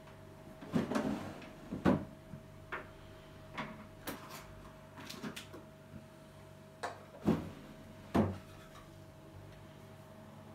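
Light knocks and taps of a coffee cup, saucer and biscuits being handled on a table, about ten in all, the loudest about two seconds in and twice around seven to eight seconds in. A faint steady hum runs underneath.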